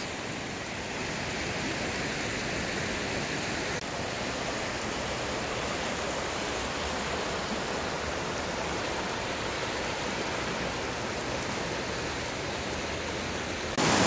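River water rushing over shallow rapids, a steady rush. It gets louder near the end, where the water pours over rock ledges in a whitewater cascade.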